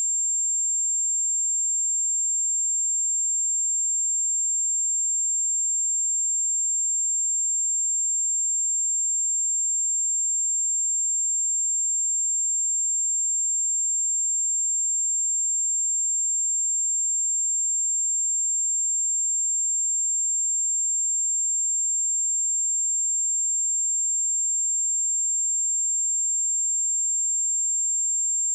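A pure 7395 Hz sine-wave test tone: one steady, high-pitched electronic whistle held unchanged at constant loudness.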